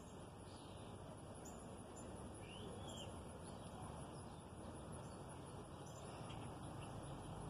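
Faint outdoor background with a few scattered distant bird chirps, one a short arched call about two and a half seconds in.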